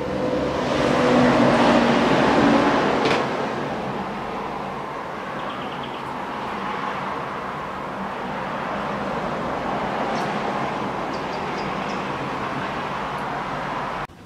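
Singer Heritage sewing machine's motor running to wind a bobbin, a steady whir that is loudest for the first three seconds and stops abruptly near the end.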